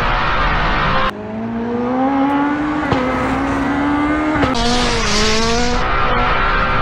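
Car engine pulling hard, its pitch climbing steadily as it accelerates, with abrupt jumps in the sound about a second in and again past four seconds.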